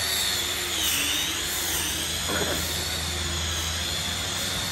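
Handheld electric grinder with a sanding disc running while it sands an epoxy floor coating to level it. It makes a steady high whine that dips in pitch and recovers a couple of times as the pad is pressed into the floor.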